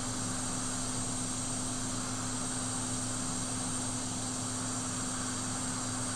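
Steady blower hiss with an electrical hum, as from a hot air rework station heating a circuit board to free a soldered chip.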